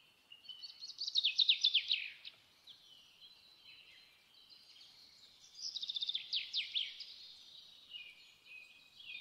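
Birds singing: two runs of quick, falling trilled notes, the first about a second in and the second about halfway through, over softer continuous high chirping.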